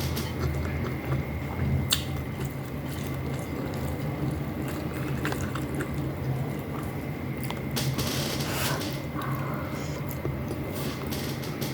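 Close-miked wet chewing, squishing and small clicking mouth sounds of someone eating vinegar-stewed fish with rice, over a steady low hum.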